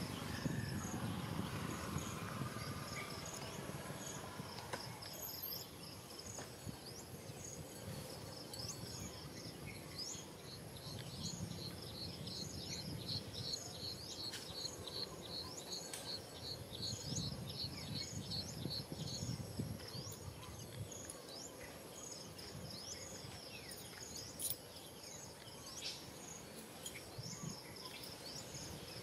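Insects chirping in repeated trains of short, high pulses, about four a second, with a faint low rumble underneath.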